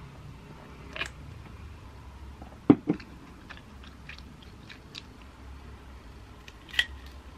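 Close-up eating of glazed fried chicken: scattered crunchy bites and chewing, with two strong low thumps a little before the middle and a sharp click near the end.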